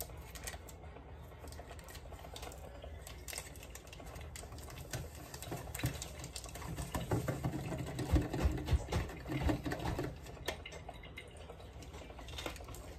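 Quiet, irregular clicking and tapping of small objects being handled close by, with a few soft low thumps about seven to ten seconds in.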